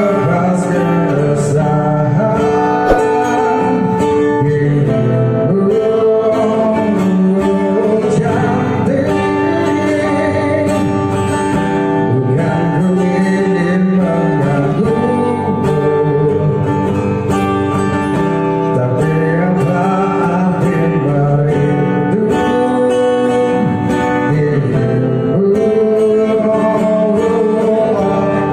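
A man singing a song into a microphone, accompanied by an acoustic guitar.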